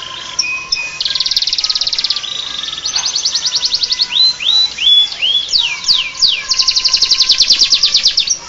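Domestic canary singing a varied song that mixes in phrases copied from the bar-winged prinia (ciblek). Fast trills of rapid repeated notes alternate with single whistled notes, some rising and some falling steeply.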